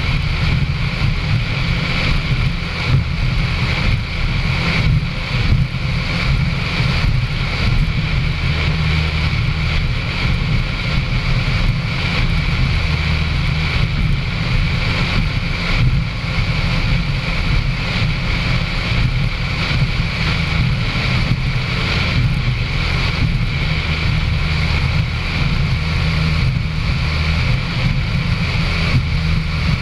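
A racing powerboat's engine running steadily at speed, mixed with wind buffeting the onboard microphone and the hull rushing through spray.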